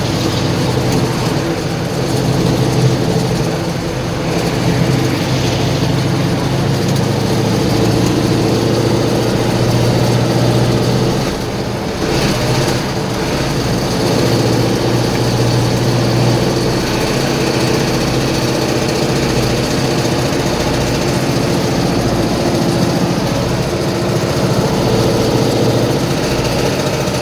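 GAZ-66's V8 petrol engine running steadily a little above idle with a rustling knock. The owner puts this down to a damaged connecting-rod bearing after water got into the crankcase, with the oil-pressure warning light on.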